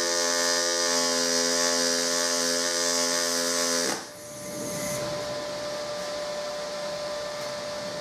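HTP ProPulse 200 pulse MIG brazing arc laying silicon bronze wire under argon: a steady pitched buzz that cuts off suddenly about four seconds in as the arc stops. A fainter steady hum with one thin high tone remains afterwards.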